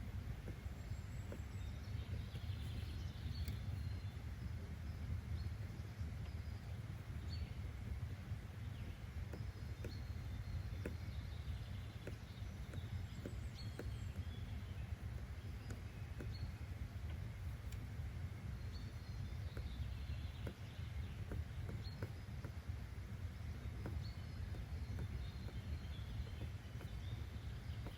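Steady low background noise, with faint bird chirps and light clicks scattered through it.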